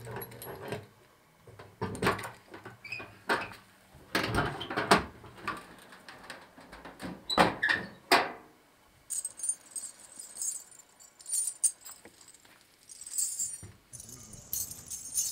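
A string of small metal ankle bells jingling and clinking in irregular bursts as it is handled, with sharper clinks in the first half and lighter, higher jingling in the second half.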